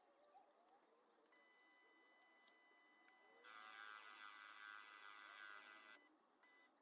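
Proxxon mini lathe running faintly while a carbide insert turns a steel rebar workpiece, with a thin steady high whine throughout. A louder passage of whine and hiss starts about halfway through and stops sharply near the end.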